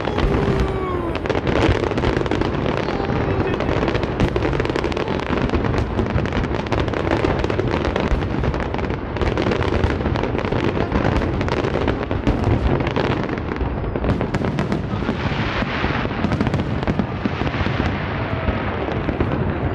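Aerial fireworks shells bursting in a dense, continuous barrage of bangs and crackles.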